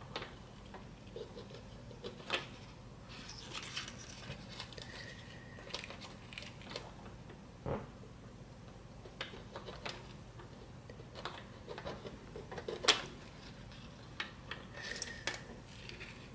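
Small metal tools clicking, tapping and clinking on a workbench while old solder is cleared from a TV's LED backlight strip, with one sharper click near the end and two short squeaks.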